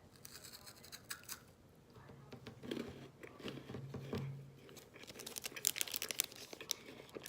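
Crisp crunching of a chocolate-covered wafer bar being bitten and chewed, a run of sharp cracks that comes thickest near the end.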